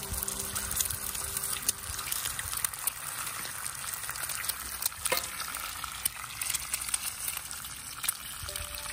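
Eggs frying in hot bacon fat in a cast-iron skillet: a steady sizzle full of small crackles and pops, after a fresh egg is cracked into the pan at the start.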